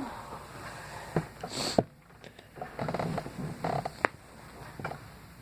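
A person sniffling and breathing noisily through the nose between sneezes. There is one sharp sniff about a second and a half in, and a few small sharp clicks.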